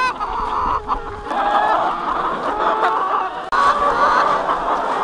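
A large flock of laying hens clucking and calling all at once: a dense, continuous chorus of many overlapping short calls.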